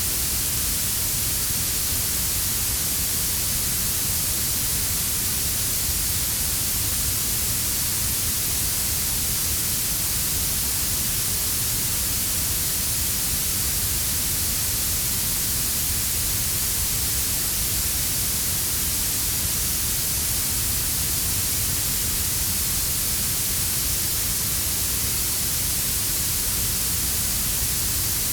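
Synthetic warm blue noise: a steady, unchanging hiss strongest in the high end, mixed with a quieter brown-noise rumble underneath.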